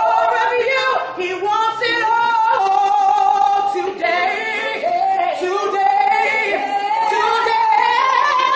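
A woman and a man singing together a cappella, holding long notes that slide from one pitch to the next.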